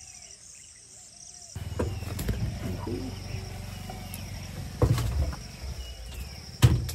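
Steady high-pitched insect chorus with a few bird chirps, then an abrupt change to a safari vehicle driving on a rough track: a low rumble with several sharp knocks and jolts.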